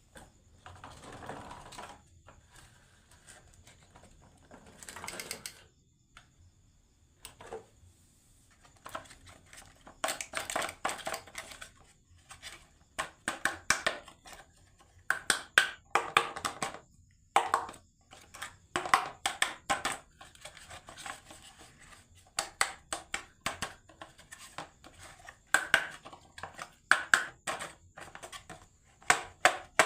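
Marbles rolling and clacking along a wooden marble run: a couple of short rolling rushes, then from about ten seconds in a dense run of sharp hard clicks as many marbles knock against the track and each other.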